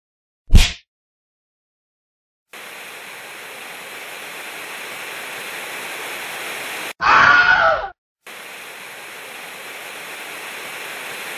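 Television static hiss (white noise), steady and slowly growing louder. It breaks off about two-thirds of the way for a loud wavering cry-like sound lasting under a second, then resumes. Before the static comes one loud, short bang about half a second in, followed by dead silence.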